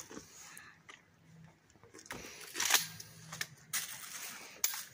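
A few sharp mechanical clicks and clacks from a shotgun being handled, the loudest nearly three seconds in.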